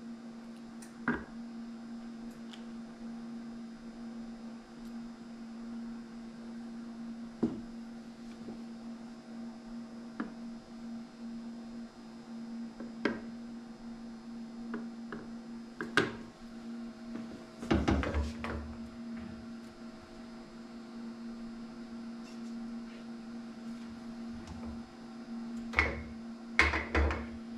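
Steady electrical hum under scattered metallic clicks and clunks from a hand bait injector and metal bait molds being handled, with a denser cluster of knocks about two-thirds through and another near the end.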